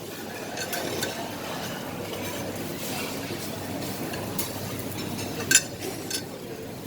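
Buffet clatter: dishes, cutlery and glasses clinking over a steady background din, with one sharp clink about five and a half seconds in.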